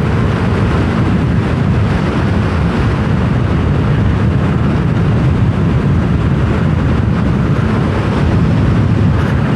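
Steady wind rush on the microphone over the running engine of a Yamaha Aerox 155 scooter's single-cylinder engine while riding at speed.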